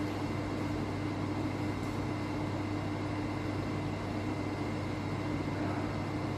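Steady room tone: an even hum and hiss with a constant low-pitched tone running underneath.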